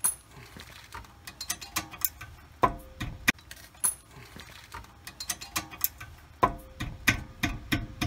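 Metal hand tools clinking and knocking while a wrench is worked onto a brake caliper bracket bolt. Scattered light clicks, with heavier knocks about two and a half, three and six and a half seconds in.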